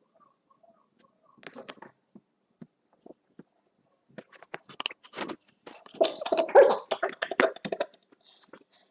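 Scratching, rustling and tapping noises as a kitten moves about right next to the camera on fabric-covered cat furniture. A few scattered clicks come first, then a dense run of scratches and knocks from about four seconds in, loudest around six to seven seconds.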